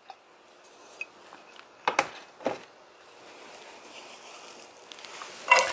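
Faint hiss of olive oil heating in a skillet, with two sharp knocks of kitchenware against the pan about two seconds in.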